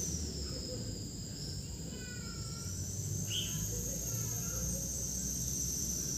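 Insect chorus: a steady high-pitched shrill that slowly wavers up and down in pitch, over a low rumble.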